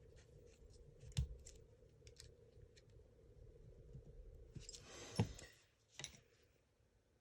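Faint clicks and taps of small gearbox parts and tools being handled, with a sharper knock about a second in and a short rustle ending in a click around five seconds in.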